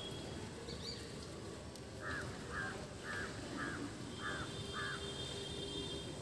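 A crow cawing six times in a row, about two calls a second, starting about two seconds in.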